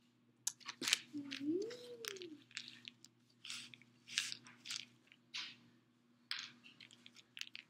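Chewing: irregular soft crunches and mouth clicks, with a brief tone that rises and falls about a second in.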